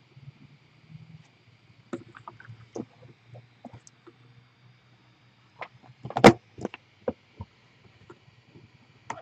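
Scattered knocks and clicks, the loudest a sharp knock about six seconds in, over a faint steady low hum.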